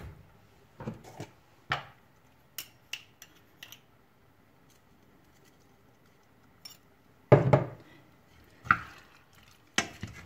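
Spoons clinking and knocking against a stainless steel pot: a few light clinks in the first few seconds as salt is spooned in with a metal spoon, a quiet stretch, then louder knocks and scrapes from a wooden spoon stirring the meat and vegetables near the end.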